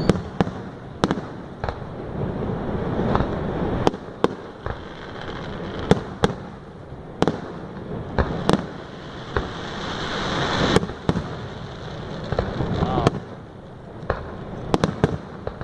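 Fireworks going off: a string of sharp bangs at irregular intervals, over a steady low rumble. A hissing crackle builds past the middle and cuts off suddenly.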